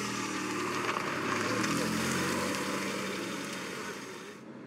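A motor vehicle passing: a steady engine note under a wide rushing hiss that swells to a peak about two seconds in and then fades. The hiss cuts off abruptly near the end.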